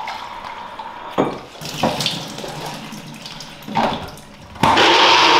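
Kitchen tap running water into a plastic blender cup, with a few sharp knocks as the cup is handled. About four and a half seconds in, a loud steady rushing noise starts suddenly.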